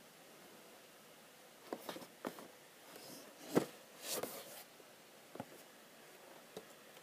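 A cardboard figure box is handled and turned on a wooden table, giving a series of light taps and knocks. The loudest knock comes about three and a half seconds in and is followed by a short rustle, and a couple of softer clicks come near the end.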